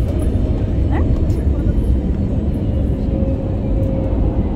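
Airliner cabin noise on the ground after landing: a steady low rumble of engines and wheels rolling along the runway, heard from inside the cabin.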